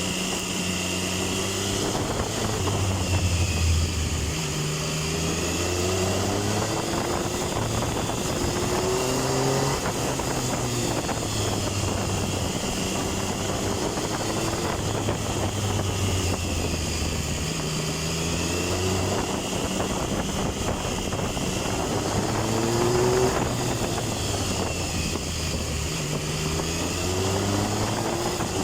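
Triumph Tiger 1050's inline-three engine revving up and easing off over and over, its pitch climbing and dropping every few seconds, with steady wind rushing over the microphone.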